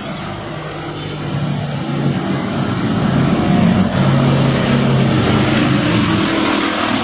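A motor vehicle's engine running, growing louder about two seconds in and then holding steady.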